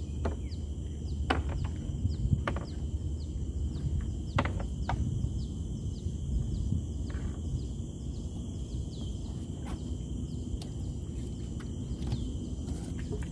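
Outdoor insect drone holding steady high tones, with a quick chirp repeating two or three times a second over it. About nine sharp clicks are scattered through, over a steady low rumble.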